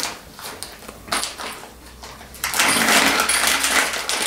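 A clear plastic bag crinkling as it is handled, with light clicks from the small spiked tripod feet inside it. The bag is quiet at first and gets loud and dense about two and a half seconds in.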